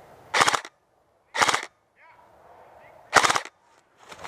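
Airsoft gun firing three short full-auto bursts of rapid clicking shots, about a second or two apart.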